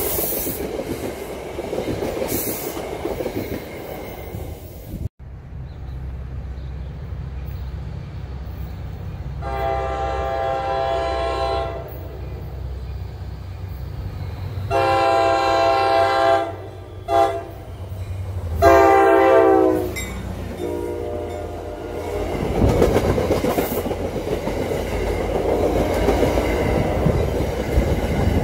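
New Jersey Transit commuter train of multilevel coaches passing close, with rumble and wheel noise. After a sudden cut about five seconds in, the horn of an approaching NJT train sounds a series of blasts, the first two long, over a low steady rumble. Near the end the train passes close with rumble and wheel clatter.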